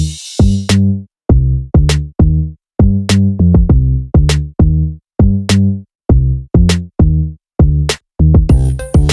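Electronic background music: a drum-machine beat of heavy kick and bass hits with sharp snare claps, about two strikes a second, with a brief break in the beat and a hissing sweep coming in near the end.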